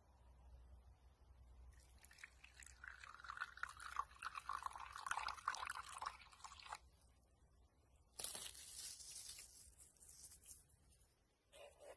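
Water poured from a metal mug into a well in a heap of flour, splashing into the growing pool for about five seconds. It ends suddenly and is followed, a little over a second later, by a shorter hiss.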